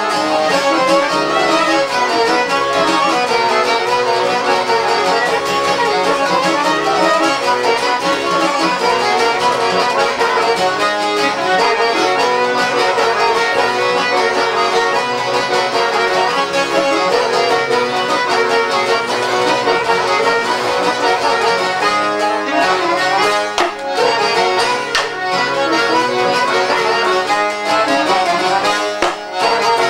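Traditional folk music without singing: violin and accordion playing a continuous melody.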